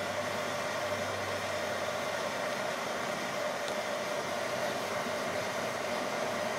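A small homemade melting furnace running with its air blast: a steady rushing noise with a steady hum underneath, unchanging throughout.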